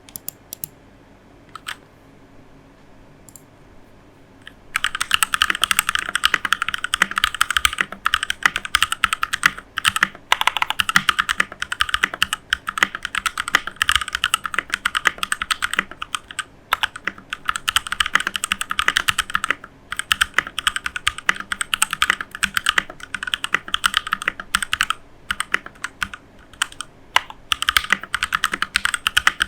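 Keychron K2 V2 mechanical keyboard typed on in a sound test: a few single key clicks, then from about five seconds in fast continuous typing broken by short pauses. The table wobbles under the typing and shakes the microphone.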